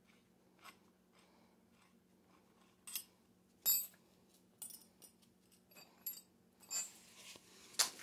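Scattered metal clinks and knocks as a wrench and a freshly pulled crank arm with its pedal are handled at an e-bike's mid-drive spindle, the loudest a little under four seconds in. A low, steady hum runs underneath.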